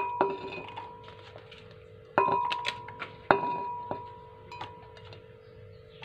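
Spice ingredients dropped into a blender jar: three sharp clinks, each leaving the jar ringing briefly, with a few lighter taps in between.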